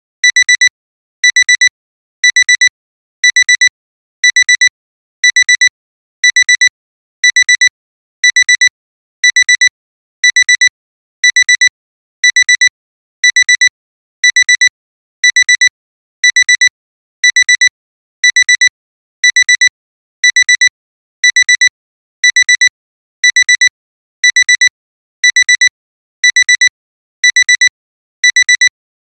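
Digital alarm clock alarm going off after a timer has run out: high-pitched electronic beeps in quick clusters, repeating about once a second without pause.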